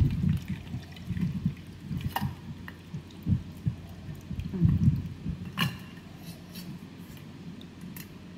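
Liquid dripping and trickling as soaked kokum water is strained through a kitchen sieve, with a few light clinks of utensils.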